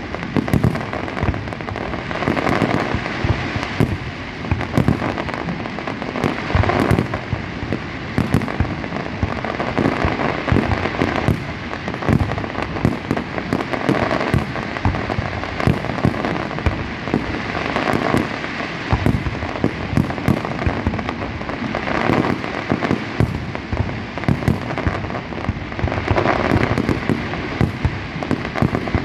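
Fireworks going off in a dense, continuous barrage: sharp bangs several times a second over a steady din of further explosions and crackle, with no let-up.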